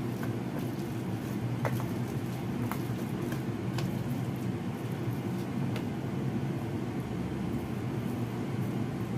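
Steady low background hum throughout, with a few light clinks, spread seconds apart, of a metal masher against a stainless steel bowl as steamed minced pork is mashed.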